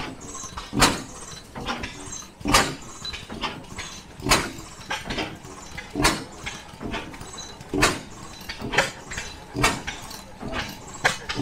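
Antique upright single-cylinder stationary gas engine running slowly, with a sharp exhaust pop about every one and three-quarter seconds and fainter clicks in between.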